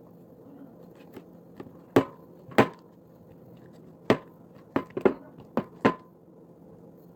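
Homemade glue-and-shaving-cream slime being kneaded and pulled by hand while still sticky, giving a string of about nine sharp slaps and snaps at irregular intervals.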